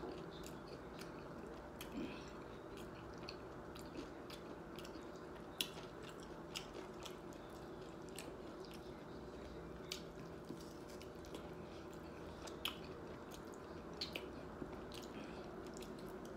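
Faint close-miked chewing of a taco: soft mouth sounds with irregular small clicks and smacks, the shell gone soft rather than crunching.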